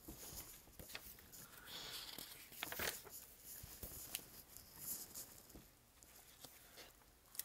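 Paper pages of a paperback picture book being handled and turned: faint rustling with scattered small clicks and taps.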